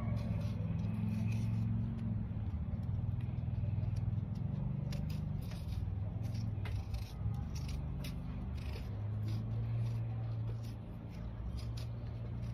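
Small knife peeling a raw potato by hand: a run of short scraping cuts as strips of peel come away. A steady low hum runs underneath.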